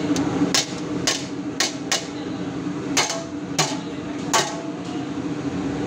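Metal spatula clanking against a large cooking pan while noodles and shredded cheese are stirred, about seven sharp strikes at uneven intervals. A steady hum runs underneath.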